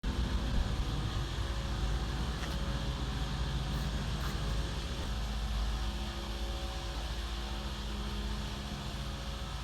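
Steady low mechanical rumble with a constant hum, unchanging throughout.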